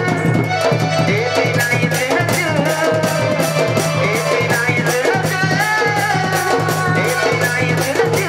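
Sambalpuri folk stage music: drums and percussion keeping a fast, steady beat under a sustained melody line.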